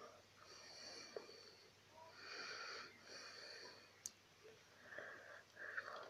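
Faint wheezy breathing with a thin high whistle, in three spells of about a second each, then two shorter breaths near the end. A few sharp clicks of plastic Rubik's cube pieces being handled come in between.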